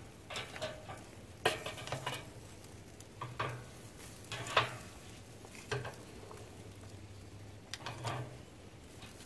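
Metal tongs clicking and scraping against the wire cooking grate of a Pit Barrel Cooker as turkey legs are turned over, a handful of sharp clinks spaced irregularly over several seconds.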